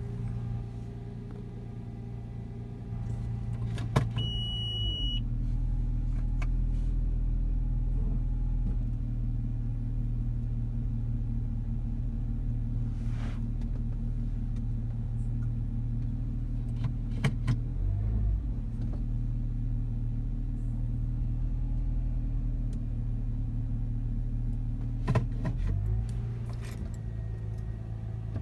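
2018 Toyota FJ Cruiser's 4.0 L V6 idling with a steady low hum. About five seconds in the note drops to a lower, steadier drone, just after a click and a brief high tone, and it rises back again near the end. Somewhere in this idle is the weird noise from the engine bay that the owner hears when idling or braking, cause unknown.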